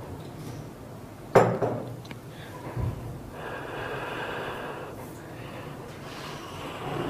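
Noises from a person close to the microphone: a sudden sharp burst about a second and a half in, the loudest sound, a low thump about a second later, then a couple of seconds of breathy hiss.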